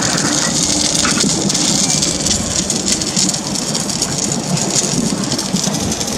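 Wire-feed (MIG) welding arc crackling steadily, a dense sizzle of tiny ticks.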